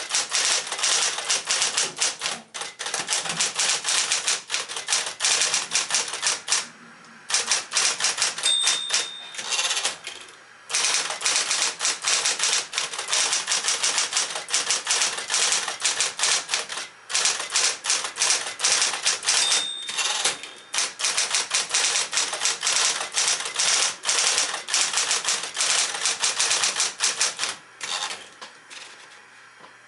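1964 Sears Medalist Electric 12 electric typewriter (a Smith-Corona 5LE) typing in fast runs of keystroke clicks with short pauses, and two brief rings about eleven seconds apart. The typing stops near the end, leaving a faint low hum.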